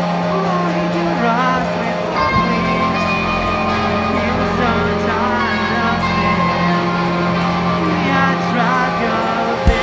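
Live rock band playing: electric guitar, bass guitar and drums under a singer's voice, with steady cymbal beats and a held low bass note. A sharp loud drum hit lands near the end.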